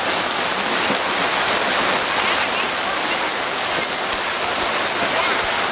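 Steady rushing noise that holds at the same level throughout, with faint voices beneath it.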